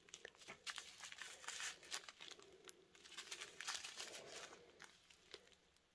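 Quiet crinkling of a small plastic zip bag of square resin diamond-painting drills as fingers knead it, with many little clicks of the drills shifting against each other inside; it dies away near the end.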